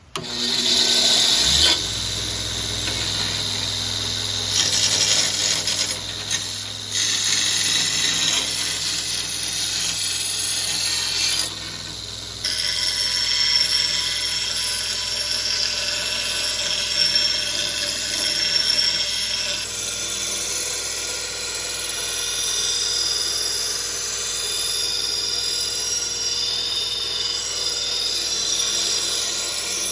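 Electric power tool grinding the steel of a lawn mower blade, with a steady motor hum and a high whine, starting suddenly and easing briefly a couple of times.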